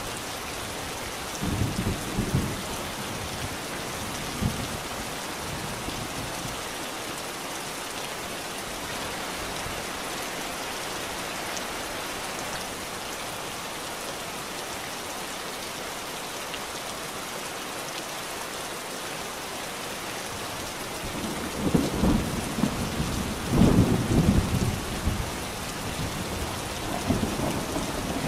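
Steady rain with thunder rumbling: a short roll about a second and a half in, and a longer, louder roll in the last third.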